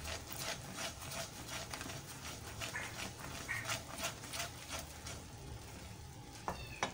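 A spatula stirring and scraping foaming, melting jaggery in a non-stick pan: a faint run of quick scrapes and clicks. Near the end a cat gives a short high meow.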